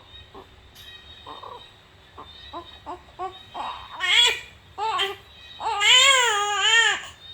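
Infant crying from hunger for breast milk: a few seconds of soft, short fussing whimpers, then loud wailing cries from about four seconds in, two short ones followed by a long, rising-and-falling wail near the end.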